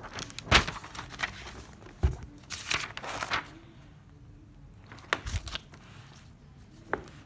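Notebook pages being turned and handled: a series of short paper rustles and crinkles with a few soft knocks, busiest in the first three seconds, with more about five seconds in.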